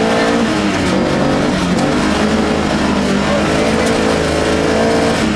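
Opel Manta rally car's engine at full throttle, heard from inside the car, over gravel road noise. The revs dip about half a second in, then build again as the car accelerates. The crew felt the engine had lost much of its pulling torque on this stage.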